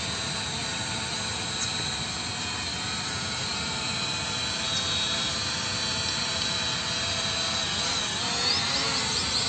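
E88 mini camera quadcopter hovering close by, its four small propellers giving a steady buzzing whine; near the end the pitch wavers as the motors change speed.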